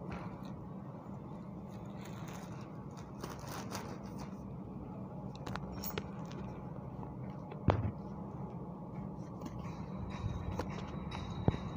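Ambient noise on a building site: a steady low hum with scattered light clicks and clinks, and two short sharp knocks, one about two-thirds of the way through and one near the end.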